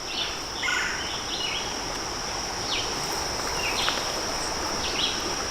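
Steady high-pitched insect drone, such as crickets, with short bird chirps scattered through it.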